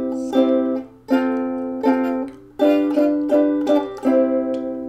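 Chords strummed on a plucked string instrument: about eight strums in a steady run, the last chord left ringing and fading.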